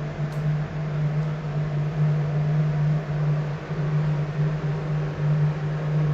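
A steady low machine hum with a constant hiss over it.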